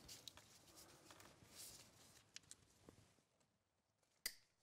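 Near silence with the faint rustle and small ticks of a nylon zip tie being pulled tight around an alternator wiring harness, then one short sharp click near the end.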